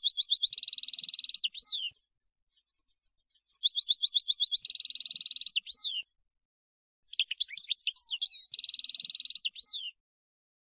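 European goldfinch singing three near-identical song phrases. Each phrase is a quick run of repeated chirps, then a buzzy trill, ending in a couple of falling notes. Each phrase cuts off into a second or so of silence.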